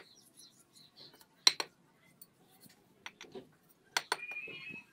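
A steel bricklaying trowel knocking clay bricks down into a mortar bed: sharp metallic clinks, one about a second and a half in, a few more around three seconds, and a quick double knock near four seconds.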